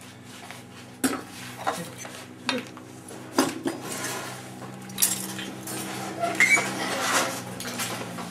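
Metal objects clinking and clattering as they are handled and set down on a tabletop: about five separate sharp knocks, then a busier run of rattling near the end, over a steady low hum.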